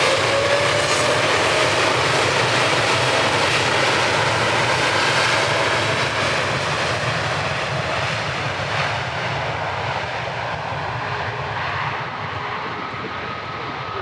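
Airliner's jet engines at takeoff power: a steady rush of engine noise with a whining tone. It fades gradually over the second half as the aircraft moves away and the higher sounds die off.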